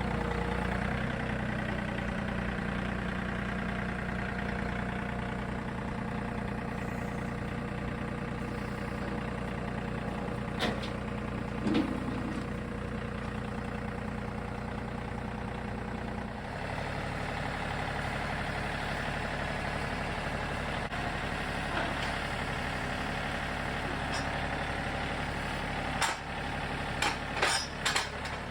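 John Deere 3025E compact tractor's three-cylinder diesel engine running steadily, its note changing about halfway through. A few sharp knocks sound in the middle, and several more come in quick succession near the end.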